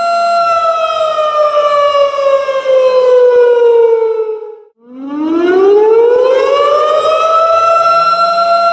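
Tornado warning siren wailing on a steady pitch, then winding down in pitch over about four seconds until it cuts out briefly near the middle, before winding back up from a low pitch to its steady wail again.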